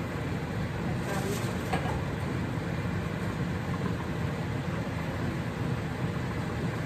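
Steady low hum of a fan-type appliance running, with a few faint light clicks about a second in.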